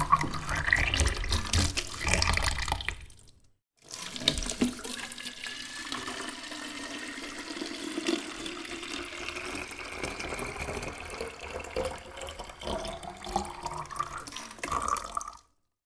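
Water streaming into a squirt bottle, its pitch rising as the bottle fills, in two takes split by a brief silence about three seconds in.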